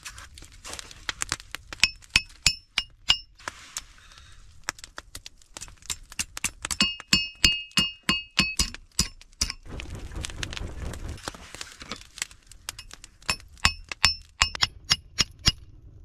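Hammer striking a heated steel rod on a small stump anvil in quick runs of blows, about five a second at their fastest, with short pauses between runs. Many blows ring with a high metallic tone.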